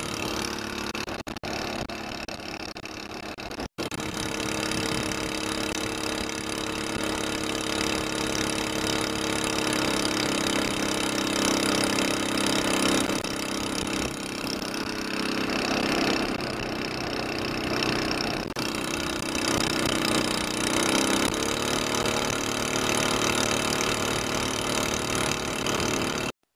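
Small single-cylinder four-stroke Honda-clone engine on a longtail mud motor, running under way through an SPS aftermarket exhaust header. The note is steady, steps up in pitch about ten seconds in, and rises briefly again around twenty-one seconds.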